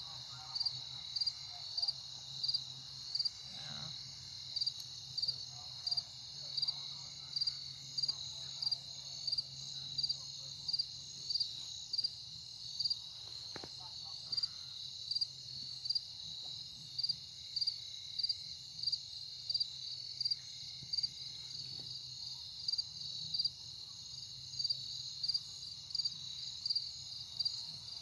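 Insects chirping: a steady high trill with regular louder chirps, roughly three every two seconds.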